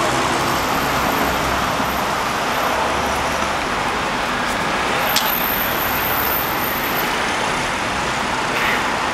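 Steady city street traffic noise, with a low rumble that fades about three and a half seconds in and a single sharp click about five seconds in.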